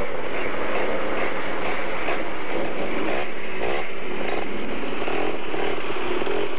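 Off-road vehicle engine running loud and revving, its pitch rising and falling repeatedly.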